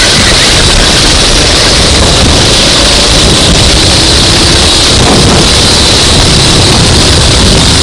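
Racing kart engine running under load, nearly buried under loud, distorted wind buffeting on the microphone.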